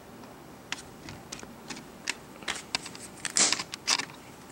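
Scattered clicks and taps of a plastic suction-cup opening pliers being picked up and handled, with the loudest cluster of clicks about three and a half seconds in.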